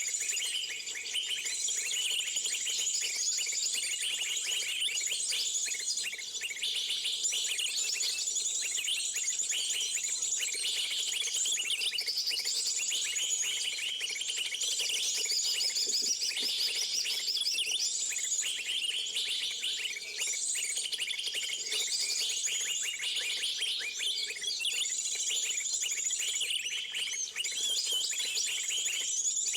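Dense, continuous high-pitched bird chirping, many calls overlapping without a break, with a faint steady hum underneath.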